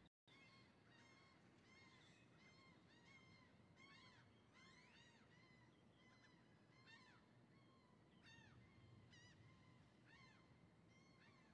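Faint chorus of many birds calling, with short arched calls overlapping and repeating throughout over a low steady rumble. The sound cuts out completely for a split second at the very start.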